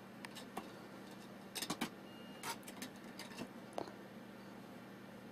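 Scattered light taps and clicks of cats playing and scrambling after a toy, a quick cluster of them about one and a half seconds in, over a faint steady hum.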